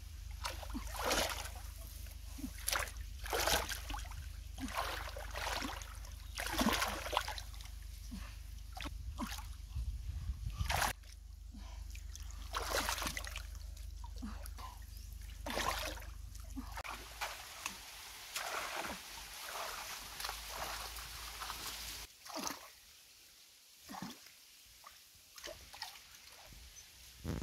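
Hands splashing and sloshing in shallow muddy water while groping for catfish, in short irregular splashes about once a second. The splashing dies away near the end.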